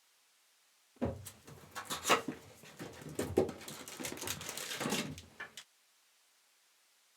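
Plastic shrink wrap crackling and tearing as a sealed hobby box of trading cards is unwrapped and opened, a dense run of crinkles and clicks lasting about four and a half seconds.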